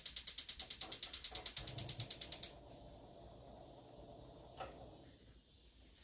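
Rapid mechanical clicking, like a ratchet, at about nine clicks a second. It stops abruptly about two and a half seconds in.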